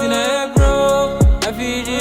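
Background music: a sung melody over deep bass drum hits that drop in pitch, twice.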